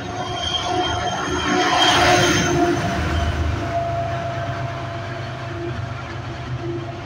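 MBTA commuter rail train running past along the platform and pulling away: a steady low rumble of wheels on rail with a thin steady whine, swelling to a rush of noise about two seconds in, then easing as the train and its diesel locomotive draw off.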